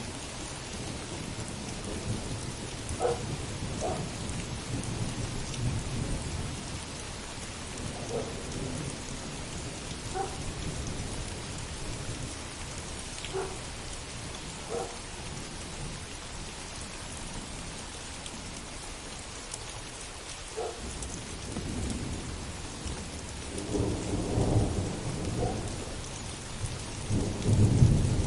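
Heavy rain falling steadily with rolling thunder that swells near the end. A dog gives short single barks every few seconds.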